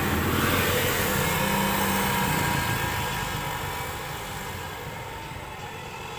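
A motor vehicle going past, its engine sound swelling to a peak in the first second or two and then fading away.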